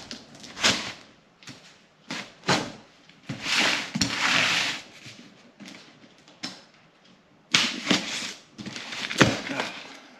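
Cardboard shipping box being cut and opened by hand: a run of knocks and thumps of cardboard, with a longer scraping, ripping sound about three to five seconds in as the knife slices through the box and tape.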